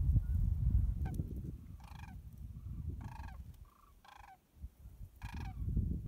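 Large waterbirds calling, four short honking calls about a second apart, over wind rumbling on the microphone.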